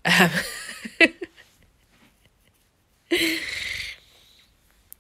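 A woman's breathy, wheezy laugh at the start, then a long breathy exhale about three seconds in.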